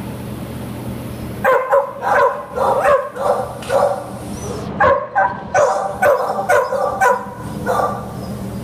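Dogs barking in a shelter kennel: many short barks, about two a second, starting about a second and a half in, over a steady low hum.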